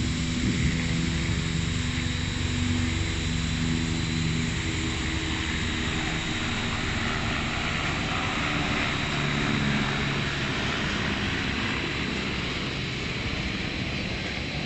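An aircraft passing overhead: a steady engine drone whose pitch drifts slowly, over an even hiss of city background noise.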